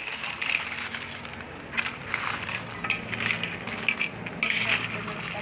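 Cooked cockle and crab shells clattering and scraping against each other and the metal wok as the heaped seafood is stirred and turned over, in irregular bursts of clicks and rustling.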